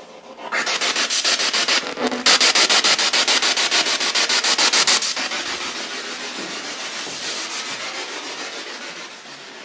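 Spirit box (ghost box) radio sweeping through stations, played through a portable JBL speaker. It gives a rapid, even chopping of radio static, about eight pulses a second. The sound is loudest in the first half and fades away over the last few seconds.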